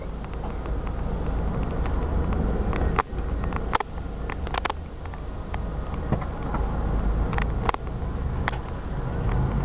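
Moving car's steady low rumble of engine and tyre noise, heard from inside the car, growing a little louder, with a handful of sharp clicks and knocks about three seconds in and again near the end.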